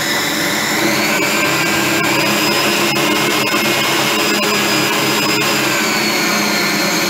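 Electric food processor motor running steadily as it mixes flour into the butter-and-sugar mixture to form cookie dough, its pitch sagging slightly near the end. A few sharp clicks are heard over the running motor.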